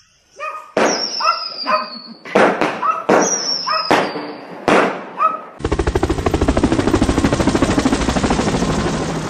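Gunfire-like bangs: several sharp bangs, two of them followed by a falling high whistle. After them comes a long, fast rattle of rapid cracks, like a machine gun or a string of firecrackers, that lasts about four seconds and stops abruptly.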